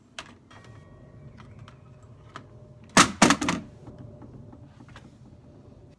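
Metal tube frame and plastic fittings of a Chicco Next2Me bedside crib clicking and knocking as it is fitted together, with a quick run of loud knocks about three seconds in.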